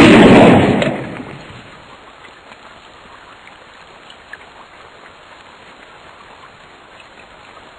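Sound-effect track of a sudden, very loud crash that dies away over about a second and a half, then a faint steady hiss of rain.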